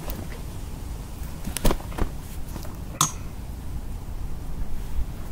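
A small common carp flapping on an unhooking mat, giving a few sharp slaps in the first three seconds over a low steady rumble.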